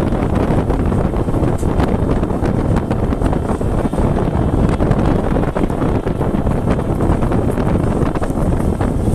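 Heavy wind buffeting the microphone: a loud, steady rumbling noise with no clear engine note.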